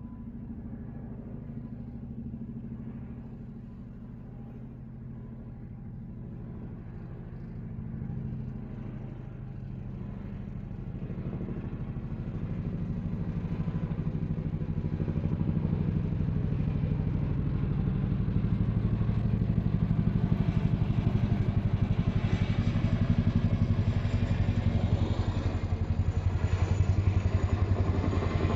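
An engine drawing steadily closer, a low pulsing drone that grows louder over about twenty seconds and then stays loud near the end.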